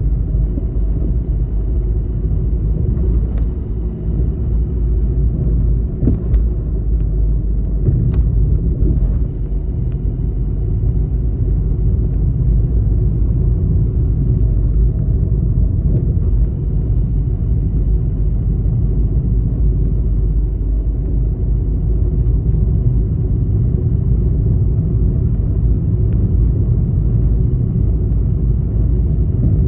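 Steady low rumble of a car driving at city speed, heard from inside the cabin: tyre and engine noise, with a few light knocks in the first ten seconds or so.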